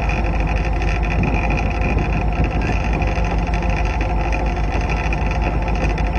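Diesel-electric locomotive engine running steadily as the train rolls along the track, heard close up from the front of the locomotive, with the hum of the wheels on the rails mixed in.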